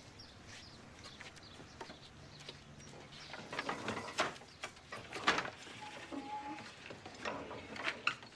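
Wooden boards knocking and clattering as they are pulled loose and moved. The knocks are sparse at first and come thick and louder after about three seconds, with a short creak near the middle.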